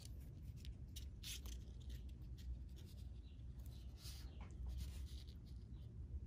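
Fingers handling and pulling nylon monofilament fishing line while tying a knot, giving soft, scratchy rubbing and rustling sounds in short patches, over a low steady hum.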